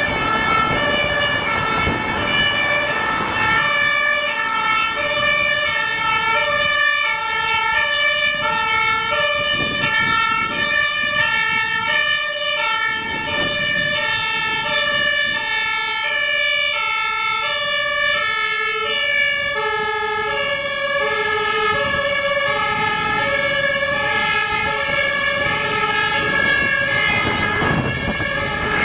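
German two-tone emergency siren (Martinshorn) on a Scania fire-brigade rescue crane truck, switching back and forth between a low and a high note in a steady rhythm. A steady high tone runs under it, with truck engine and traffic noise below.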